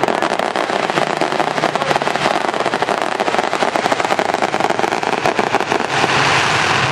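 BriSCA F1 stock car V8 engine revving hard, its open exhaust giving a dense, rapid crackle that smooths out briefly near the end.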